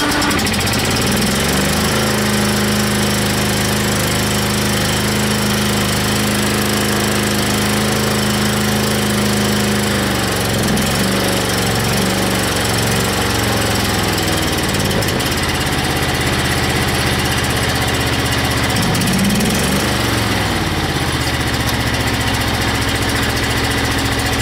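MTD LT-185 hydrostatic lawn tractor's engine catching on a cold start and running steadily, its speed shifting up and down briefly about ten seconds in and again near twenty seconds.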